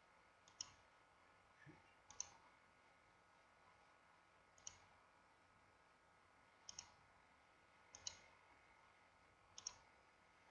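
Faint computer mouse clicks every second or two, some of them in quick pairs, over near-silent room tone.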